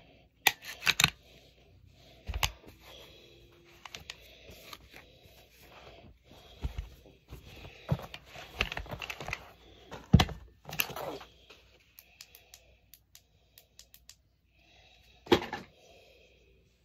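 Desert Eagle .44 Magnum pistol parts being handled: irregular metallic clicks and clacks, with the sharpest knocks about two and a half, ten and fifteen seconds in.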